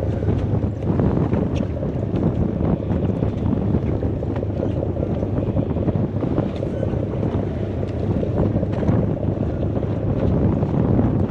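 Steady wind buffeting the microphone over the wash of open-ocean water around a boat, a continuous low rumble with no single event standing out.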